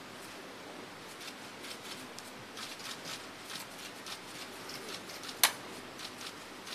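Faint rustling and light ticks of papers being handled at a desk microphone, with one sharp click about five and a half seconds in.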